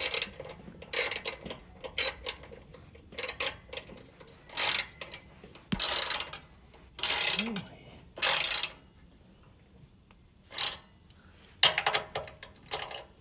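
Hand socket ratchet clicking in short runs as slider-bracket bolts are turned, about ten strokes with a brief pause about two-thirds of the way through.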